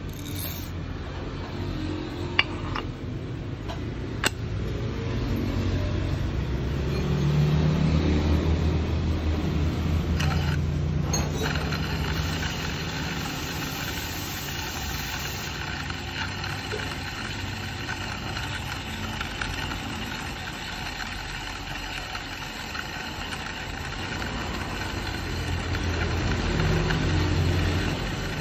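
Varia VS3 coffee grinder running on its newly replaced motor, grinding a single dose of coffee beans: a steady motor hum and whine that swells twice as the burrs take load. Two sharp clicks in the first few seconds as the beans are tipped in and the lid is set on.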